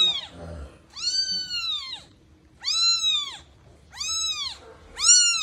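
Newborn kitten mewing in a run of about five high-pitched cries, each rising then falling in pitch, about a second apart, while its mother carries it in her mouth.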